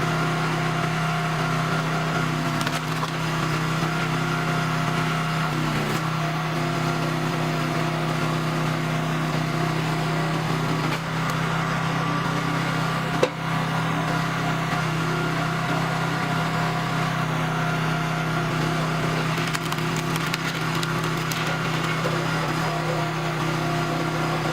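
Iron and Oak 37-ton hydraulic log splitter with its Honda GX270 single-cylinder engine running steadily as logs are split, with wood cracking and splintering. The engine note dips briefly under load early on, and there is one sharp crack about halfway through.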